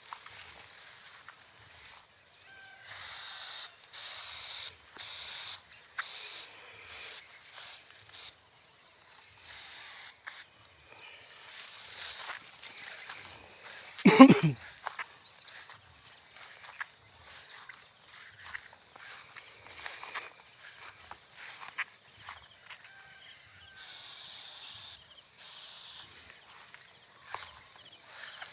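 Insects chirping steadily in a fast, high, pulsing trill, with rice plants rustling as someone pushes through them. One loud, brief noise falls in pitch about halfway through.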